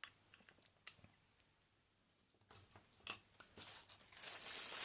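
Two light clicks, then plastic packaging crinkling and rustling as it is handled, starting about two and a half seconds in and growing dense and steady in the last second.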